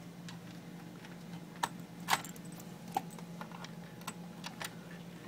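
Irregular light clicks and taps, about a dozen, as a VGA cable connector is handled and plugged into a laptop docking station, over a low steady hum.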